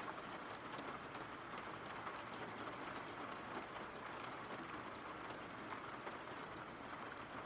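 Steady rainfall: an even hiss with scattered ticks of single drops.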